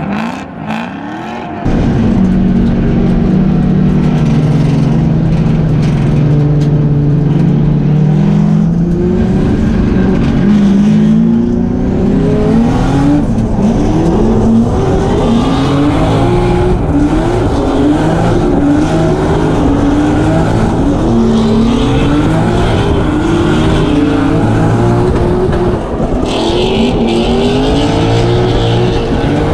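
Drift car's engine, loud, coming in suddenly about two seconds in. It holds a fairly steady note at first, then rises and falls over and over as the throttle is blipped and worked.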